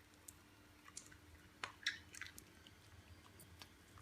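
Faint crunching clicks of a miniature dachshund chewing, clustered about two seconds in.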